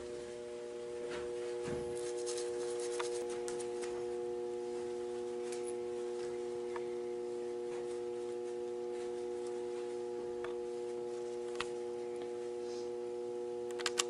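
Steady electrical hum made of several even, unchanging tones, with a few light clicks and rustles from hands handling small items on a workbench.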